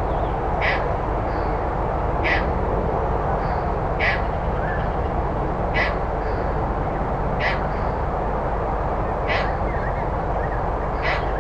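Slowed-down recording of a bird giving a short call seven times, about every 1.7 seconds, over a steady hiss.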